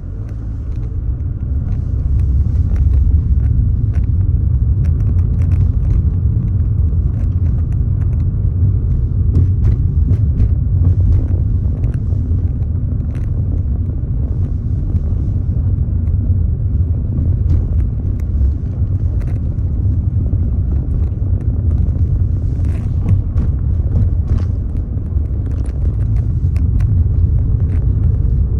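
Outdoor forest ambience dominated by a steady low rumble, with faint short ticks scattered over it.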